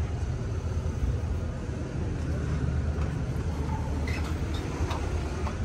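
Steady low rumble of the 1962 GMC's original 305 V6 idling, heard through its true dual exhaust with glass-pack mufflers. A few faint clicks come from the rear cargo door being handled about four to five seconds in.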